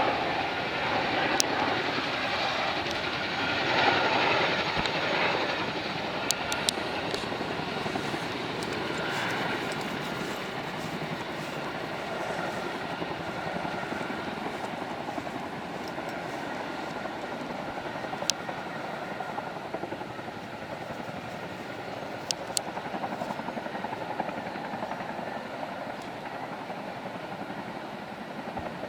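Chinook twin-rotor helicopters droning in the distance, a steady sound that slowly fades, with a few faint clicks.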